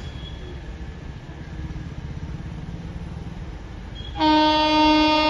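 Low rumble of an approaching train, then about four seconds in the electric locomotive's horn starts with a loud, steady blast.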